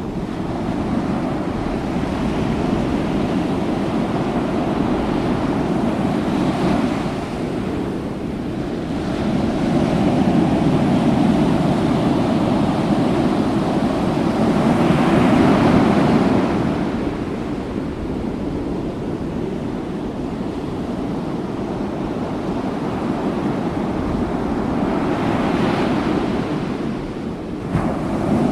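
Ocean surf breaking on a beach: a continuous rushing wash that swells as each wave breaks and eases between them. The loudest break comes about halfway through.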